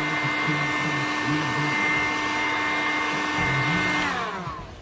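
Electric heat gun running, its fan blowing steadily with a whine, then switched off about four seconds in, the whine falling away as the fan winds down.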